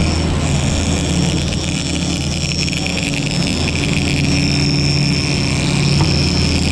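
Twin Yamaha outboard engines running steadily with the boat under way, a constant low hum over the rush of wake water, with a thin high whine above it.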